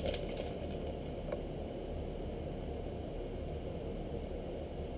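Steady low background hum, with a faint tick about a second and a half in.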